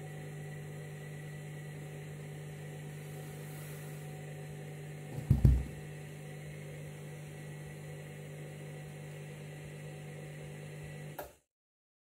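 Candy front-loading washing machine running its wash tumble with a steady motor hum. About halfway through there is one loud low thump. The hum cuts off abruptly shortly before the end.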